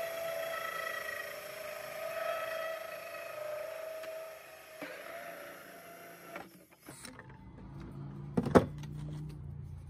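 Cordless drill spinning a 3-inch hole saw through the side of a plastic 5-gallon bucket: a steady motor whine whose pitch sags a little as the saw bites. It stops about seven seconds in. A single sharp knock follows near the end.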